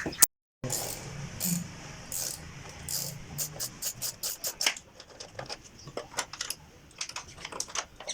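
Irregular metallic clicks and clinks of hand tools and bolts as the timing belt cover is unbolted and taken off a car engine.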